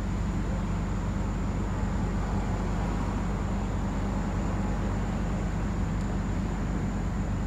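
An engine running steadily with a low, even hum and no change in speed.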